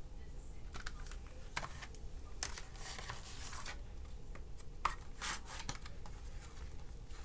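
Plastic CD jewel cases being handled: scattered light clicks and a few short rustles, over a low steady hum.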